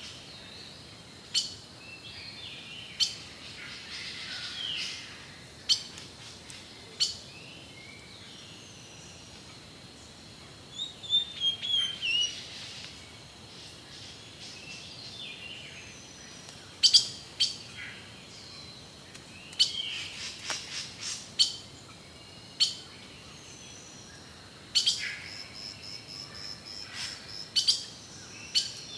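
Amazon rainforest birds calling: scattered sharp chip notes and short sliding whistles, coming in small clusters about ten seconds in, around twenty seconds and near the end, over a faint steady high tone.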